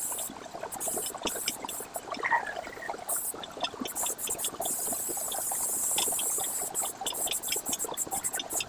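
Airbrush spraying paint in short hissing bursts, switched on and off by the trigger, with one longer spray of about two seconds near the middle. Beneath it runs a constant crackling patter.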